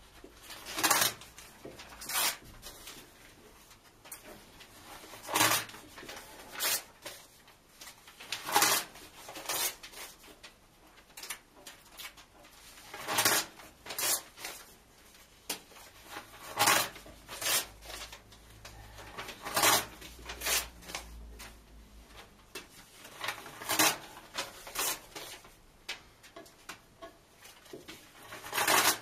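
Book pages being ripped out and torn in half by hand: short, sharp tearing sounds that come irregularly every one to three seconds.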